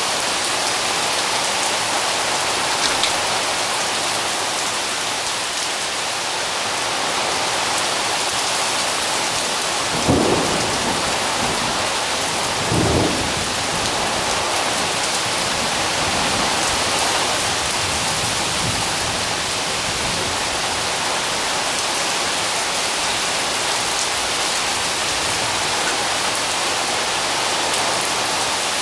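Heavy rain falling steadily, with two short low bursts of thunder about ten seconds in and again about three seconds later.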